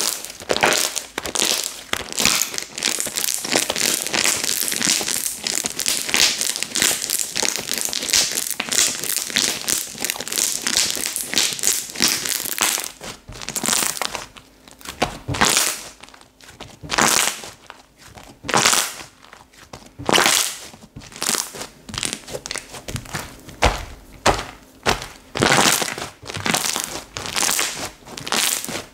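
Slime being squeezed, pressed and stretched by hand: dense crackling and squishing for the first half, then slower, separate squelches and pops about once a second.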